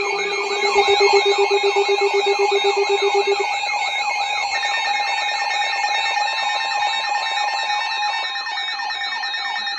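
Several emergency alert receivers sounding their electronic alarms at once, announcing an incoming severe weather warning: overlapping warbling siren tones with a fast-pulsing low beep that stops about three and a half seconds in, and a steady higher tone that joins about a second later.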